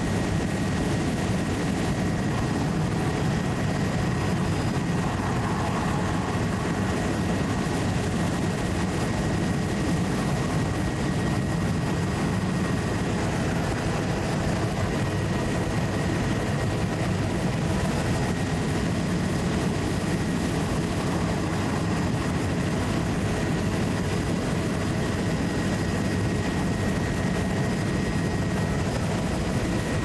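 Steady engine drone of the low-flying survey aircraft, heard from on board, with a faint steady high whine above it.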